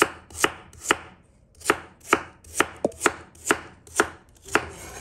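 A crinkle-cut knife chops through peeled Chinese yam and strikes a wooden cutting board. There are about ten crisp, evenly spaced chops, roughly two a second, with a short pause about a second in.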